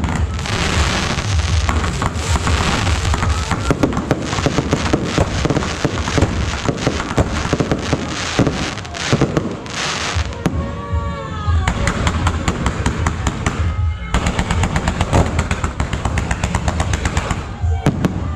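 Fireworks going off in a dense, continuous barrage of rapid crackling bangs and pops. About ten to twelve seconds in, a few whistles glide up and down over the crackle.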